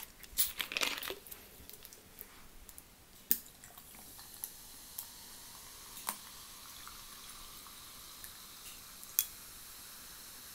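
Orange fizzy pop poured from a plastic bottle onto ice in a glass tankard: a steady fizzing hiss from about four seconds in, with a few sharp clicks. Rustling and knocks in the first second or so.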